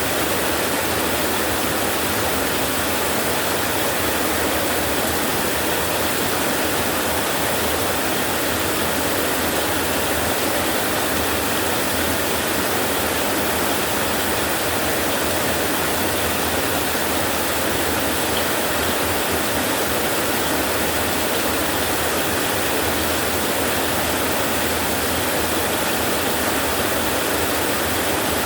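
Heavy rain falling steadily on metal roofs, an even, unbroken rush with no thunder.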